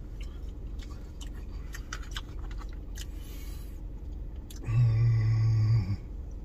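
Eating sounds: small clicks of a spoon and chewing, then about five seconds in a man's low, steady hummed "mmm" of enjoyment held for about a second, the loudest sound.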